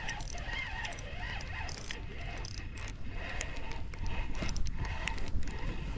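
Spinning reel being cranked, with light clicking and rattling from the reel and its handle, over a steady low rumble of wind on the microphone.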